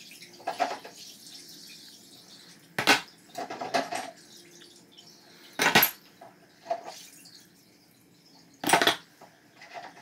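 Small metal vise parts (nuts, split nut, yoke) being lifted out of a bucket of rust-remover and set down in a plastic tub: three sharp metallic clanks about three seconds apart, with softer knocks and clinks between them.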